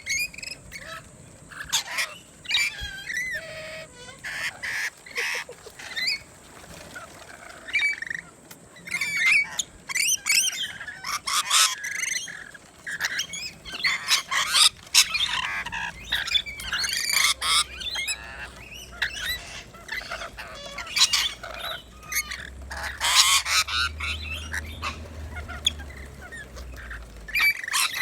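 Lorikeets calling: repeated harsh squawks and chatter, coming again and again, some loud and some softer.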